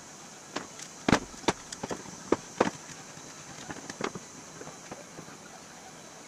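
Irregular sharp knocks and light clatter, loudest in the first three seconds, as a thin aluminium sheet panel and a wooden block are set against a plywood form and a C-clamp is fitted over them.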